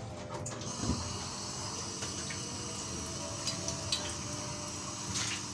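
Steady hiss of a lit gas stove burner under an aluminium pot, with a few light clicks.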